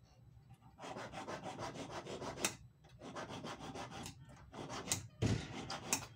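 Small metal sewing-machine plate, the one that spreads the thread around the shuttle, being rubbed by hand against an abrasive in rapid back-and-forth strokes. The strokes come in several short runs with brief pauses. The plate is being polished smooth to stop the thread from catching and snapping.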